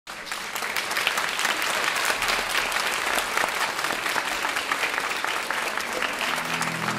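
Audience applauding, a dense steady clatter of clapping. Backing-track music comes in near the end.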